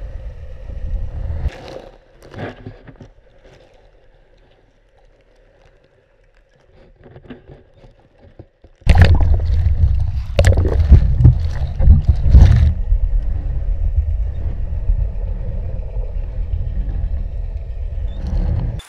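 Underwater sound of canal water heard through a submerged camera: a deep rumble that drops away about two seconds in, leaving faint clicks. About nine seconds in it returns loud and stays, with several sharp knocks and splashy churning over the top.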